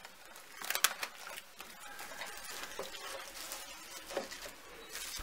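Plastic cling film crinkling and rustling as it is stretched and pressed down over a glass baking dish, with a few light clicks.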